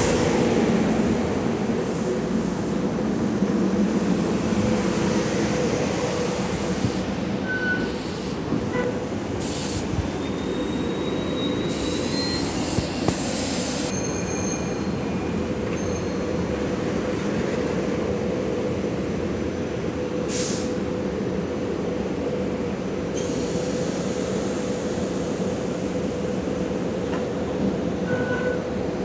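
SEPTA Silverliner IV electric commuter train rolling in and slowing to a stop, then standing with a steady electrical hum. The rumble is loudest in the first few seconds, and there is a faint, rising high squeal partway through as it stops.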